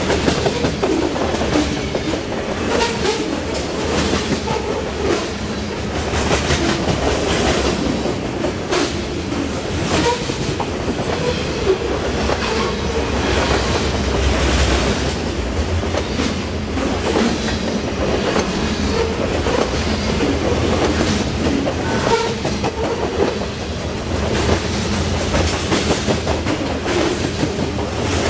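Covered hopper cars of a grain train rolling past at close range: a steady rumble of steel wheels on rail with repeated clicks as the wheels cross rail joints.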